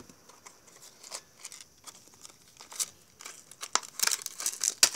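Plastic toy packaging crinkling and rustling in irregular crackly bursts as a doll is pulled out of its box, busiest near the end.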